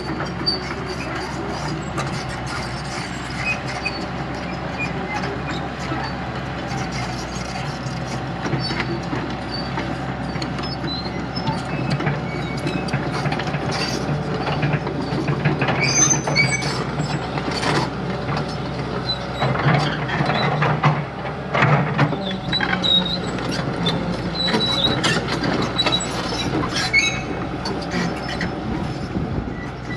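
Samsung SE210LC-3 tracked excavator working, its diesel engine running steadily under scattered high metal squeaks and knocks from the steel tracks and pins. The squeaks and knocks come thicker after the middle.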